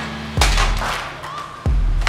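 Background hip-hop music: a beat with two deep bass drum hits, about half a second in and near the end, and sharp noisy percussion hits between them.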